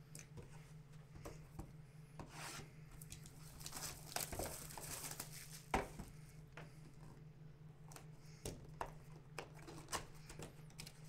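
Plastic wrap being torn and crinkled off a sealed trading-card box and the cardboard box handled and opened, with scattered clicks and taps and one sharper tap about six seconds in. A steady low hum sits underneath.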